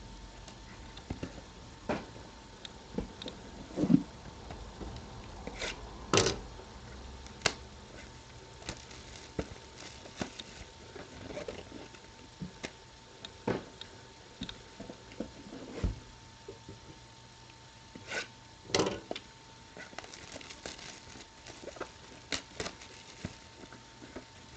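Trading card boxes and packs handled on a table: scattered light taps, clicks and short rustles, over a faint steady hum.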